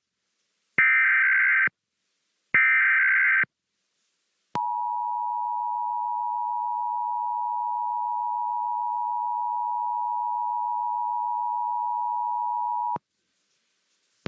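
Emergency Alert System SAME header: two buzzy digital data bursts, each about a second long, then after a short gap the EAS two-tone attention signal (853 and 960 Hz sounded together), a steady tone held for about eight seconds that cuts off sharply.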